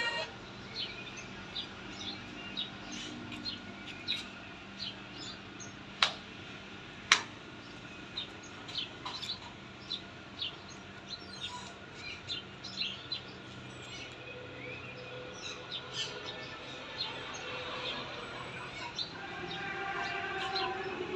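A gosling peeping in short, high chirps scattered throughout, with two sharp clicks about six and seven seconds in. Near the end the adult domestic geese give lower, longer calls.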